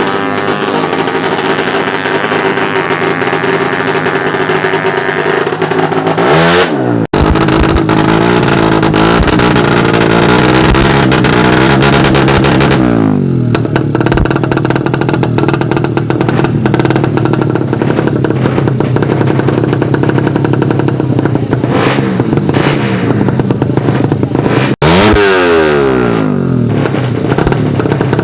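Suzuki Satria FU drag bikes' single-cylinder four-stroke engines revving hard at high pitch, the pitch sweeping sharply up and down several times as bikes accelerate and pass. The sound breaks off abruptly about seven seconds in and again near the end.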